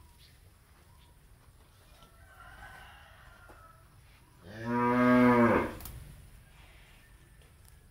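A cow moos once: a single loud, low call lasting about a second and a half, starting about four and a half seconds in and dropping in pitch as it ends.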